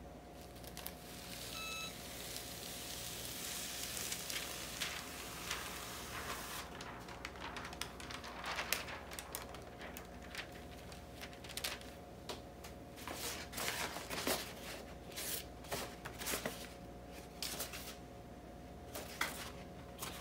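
Clear plastic hotfix transfer tape being peeled off a T-shirt's rhinestones, a run of crackles and rustles as the film lifts away. A short beep about two seconds in.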